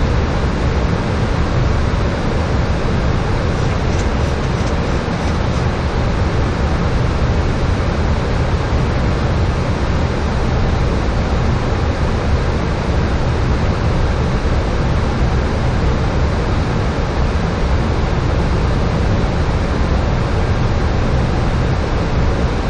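Flight-deck noise of a Boeing 737-800 in flight: a constant rush of air with a low rumble beneath it.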